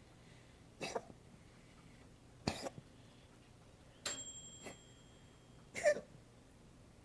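Coughing in four short, sharp bouts spaced one to two seconds apart. A thin, high ringing tone hangs on for about a second and a half after the third cough.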